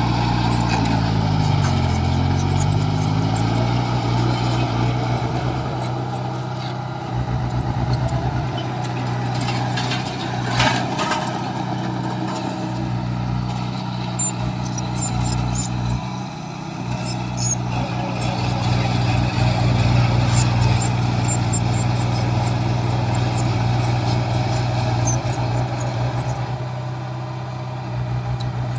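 Heavy diesel engines of construction machinery running. One engine note falls in pitch over the first couple of seconds, then the drone holds steady.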